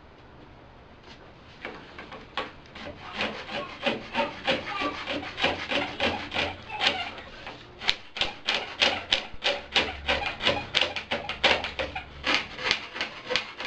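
Hand saw cutting through a plastic water pipe, in steady back-and-forth strokes about three a second, starting a couple of seconds in and quickening in the second half.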